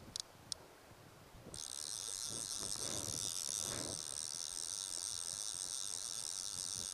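Fly reel's click-pawl drag: a few separate clicks, then from about a second and a half in a continuous high-pitched buzz as line is pulled off the reel. This is the sign of a hooked salmon running and taking line.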